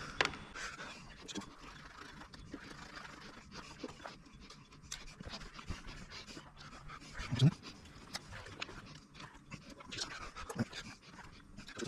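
Scattered small clicks and knocks of hand tools and connectors being handled on a high-voltage battery pack, with one louder knock about seven and a half seconds in.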